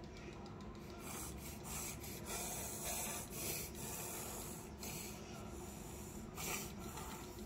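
Irregular rustling and rubbing noises in short bursts.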